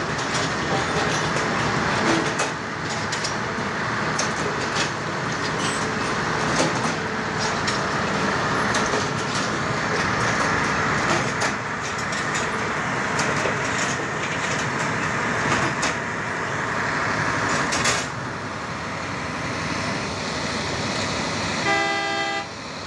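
Track laying machine working on high-speed rail track: a steady noisy machinery din with frequent sharp knocks. A short horn beep near the end.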